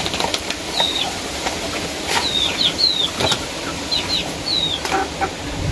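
Small birds chirping nearby: short, high chirps that slide downward, a dozen or so in quick runs, with a few soft knocks in between.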